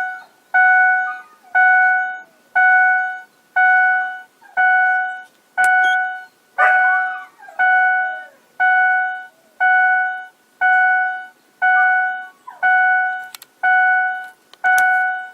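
Electronic warning chime of a 2003 Ford Expedition, the same ding repeating about once a second with the ignition on and the door open.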